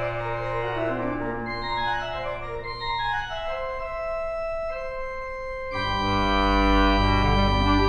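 Bass clarinet and organ playing together: a melody moves over a held low organ note, then about six seconds in the organ comes in louder with full chords and a deep bass.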